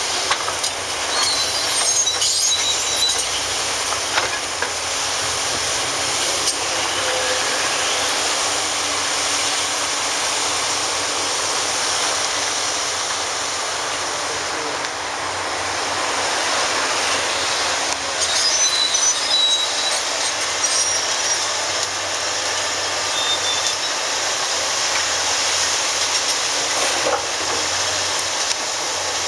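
Hitachi ZX870-3 large demolition excavator working in rubble: a steady, loud run of engine and hydraulic noise with the bucket and tracks grinding through concrete debris. Brief high metallic squeals come a few times, near the start and again about two-thirds of the way through.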